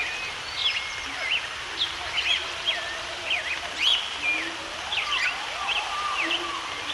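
Several birds chirping and singing at once in short, quick overlapping notes, with softer lower calls underneath and a steady background hiss.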